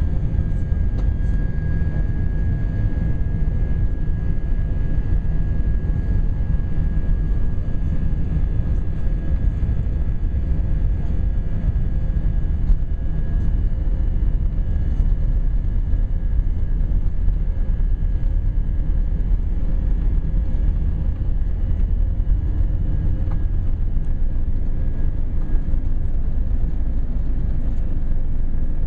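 Airbus A320's IAE V2500 turbofans at take-off thrust heard from inside the cabin: a steady deep rumble with a thin steady whine above it.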